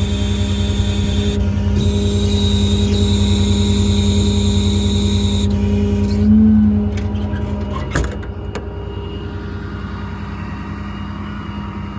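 6.7 Cummins diesel running with the truck's hydraulic air compressor working, a steady hum with a high hiss over it. About six seconds in the hiss stops abruptly, a few sharp clicks follow, and the engine hum carries on.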